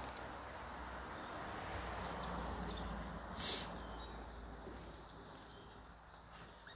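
Small hens scratching and pecking in garden soil: a soft, steady rustling of litter, with a brief sharp sound about three and a half seconds in.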